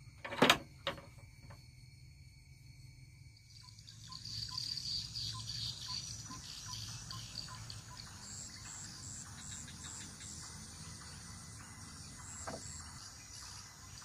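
Steel barrel bolt on a wooden door being slid, with a sharp metallic clack about half a second in and a lighter click just after. From about four seconds a steady insect chorus, crickets among them, sets in with a regular chirping call.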